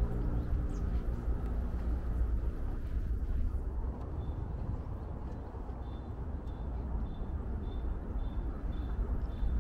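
Outdoor park ambience: a steady low rumble, with a short high chirp repeating about twice a second through the second half.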